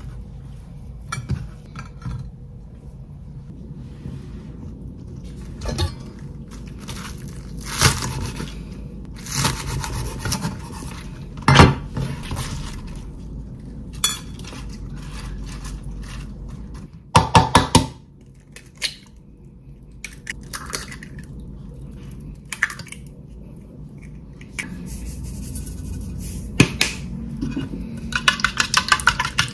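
Kitchen handling sounds: scattered clinks, taps and knocks of food and utensils being set into an enamel tray and on a wooden board. In the last second or so, quick rhythmic taps of a utensil beating eggs in a bowl.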